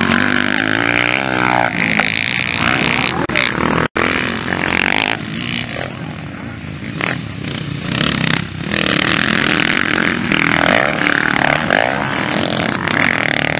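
Motocross dirt bike engines revving up and down as the riders accelerate out of corners and race past, with the sound cutting out for an instant about four seconds in.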